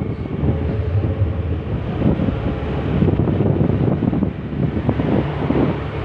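Wind buffeting the microphone over the steady running of a Honda Beat motor scooter's small single-cylinder engine while riding along.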